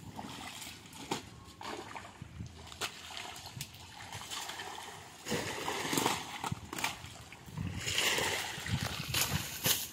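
Water splashing and sloshing in irregular bursts, with scattered knocks. The heaviest splashing comes about five seconds in and again from about eight seconds in.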